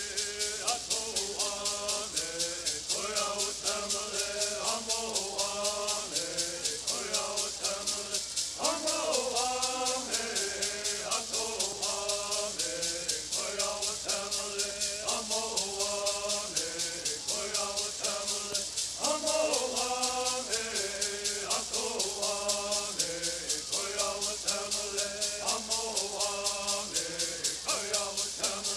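Southern California bird singing: a group of singers chanting a bird song together in repeating phrases over gourd rattles shaken in a steady, quick beat.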